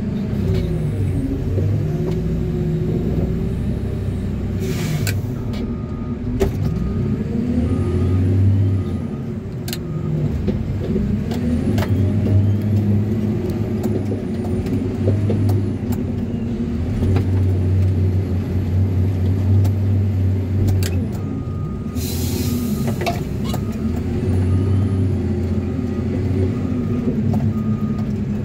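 Cat wheel loader's diesel engine heard from the cab, revving up and down again and again while the loader works, with a high whistle that rises and falls with the revs. A reverse alarm beeps steadily twice, while the loader backs up, and two short hisses of air come through.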